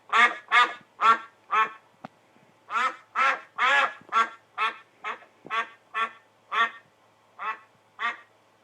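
Duck quacking sound effect played back: a run of about fifteen short quacks, roughly two a second, with a brief break and a sharp click about two seconds in.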